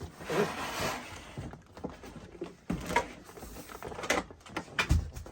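Opened cardboard box being handled: a rustle of cardboard and packaging in the first second, then a few sharp knocks and clicks, with a dull thump near the end.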